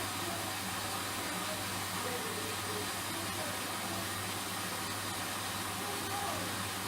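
Hoover front-loading washing machine running in its rinse stage: a steady hum under an even hiss of water.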